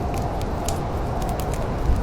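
Wood fire crackling in a fireplace: scattered sharp pops and snaps over a steady low rumble of burning.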